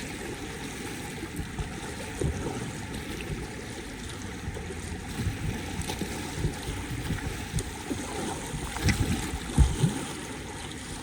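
Swirling, gurgling river current around a whitewater kayak, with irregular splashes and knocks from paddle strokes.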